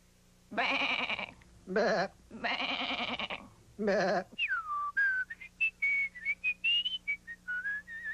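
Four quavering sheep bleats, voiced for a cartoon flock, followed by someone whistling a jaunty tune that opens with a long downward slide and goes on in short hopping notes.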